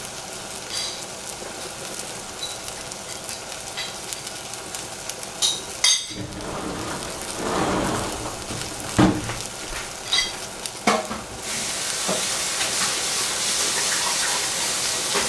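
Oyster mushrooms sizzling in a little soup stock in a stainless saucepan on a gas burner, a steady hiss broken by a few sharp pops. The hiss grows louder about two-thirds of the way through.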